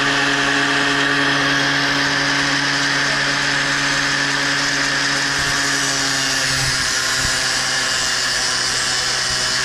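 Milwaukee Fuel cordless angle grinder with a cut-off wheel running steadily at full speed, a loud, even motor whine. It is being used to cut a part off.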